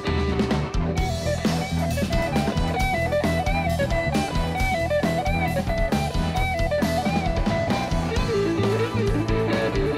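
Blues-rock band playing an instrumental passage on drum kit, electric guitar and keyboard. A lead line repeats a short figure of wavering, bending notes, dropping to a lower register near the end.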